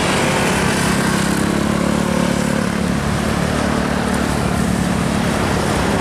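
Diesel engine of a minibus driving past, a steady low drone with road noise.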